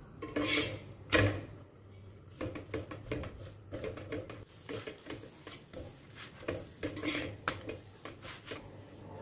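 Spatula scraping and tapping against an iron tawa while a paratha is oiled and pressed on it: a run of short scrapes and clicks, with one sharper knock about a second in.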